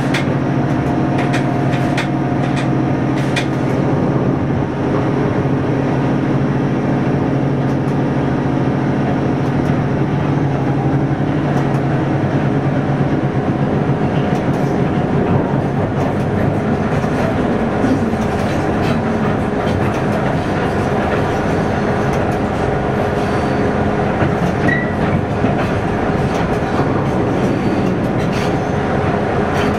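A train running on the line, heard from inside the driver's cab: steady running noise with the wheels clicking over the rails. A low hum from the drive eases off about a third of the way in.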